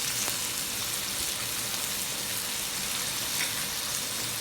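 Chicken frying in a hot pan with garlic, onion and ginger, a steady sizzle as black soy sauce is added.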